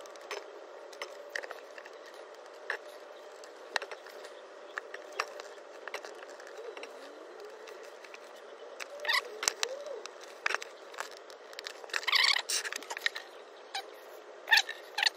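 Plastic gear-oil bottle being squeezed to pump fresh gear oil through a tube into a van's rear differential: scattered light clicks and crackles, getting louder and busier in the last few seconds.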